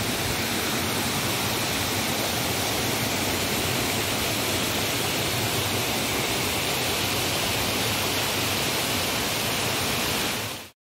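Rocky forest stream rushing over a small cascade: a steady, even rush of water that cuts off suddenly near the end.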